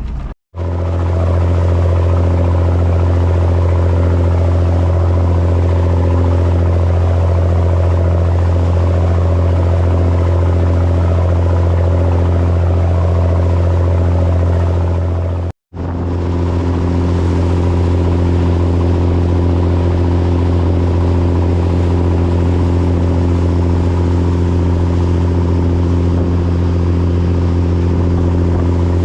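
Charter fishing boat's engine running steadily under way, a deep even drone that drops out abruptly twice, about half a second in and about halfway through.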